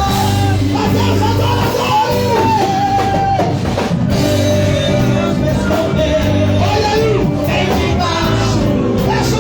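Band music with a singing voice: a wavering sung melody over sustained bass and guitar, with drums.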